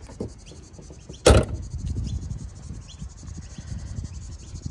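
The bonnet of a Holden VF Commodore wagon pushed down and slammed shut with one loud bang about a second in, followed by low rumbling handling noise.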